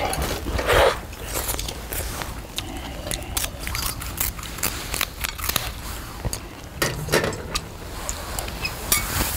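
Eating sounds at a shared seafood stew: scattered sharp clicks and clinks of metal tongs and chopsticks against a wide metal pan, with chewing and slurping, over a steady low rumble.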